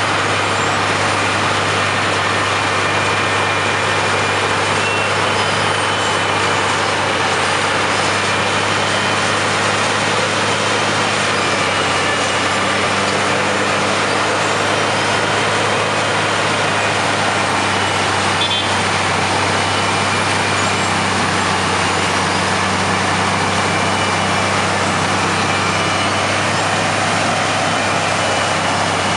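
Heavy diesel road-works machinery running steadily, a dense unchanging engine noise with a constant low hum.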